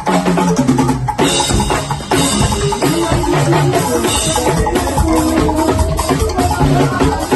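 Band music with a drum kit and percussion playing a steady beat under a run of short bass and melody notes.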